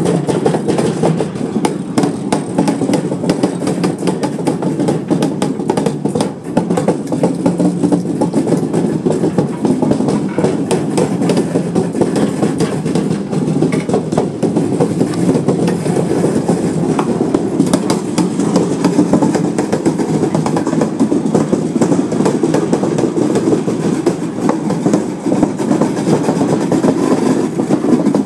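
A freight train of bulk tank wagons rolling slowly past, with steady wheel-on-rail rumble and a constant run of clicks and clacks from the wheels crossing rail joints.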